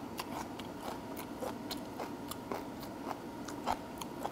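Faint, irregular light clicks, a few each second, over a quiet steady room hum.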